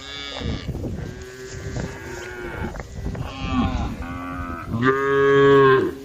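Cattle mooing: several cows calling over one another, with one loud, long moo near the end.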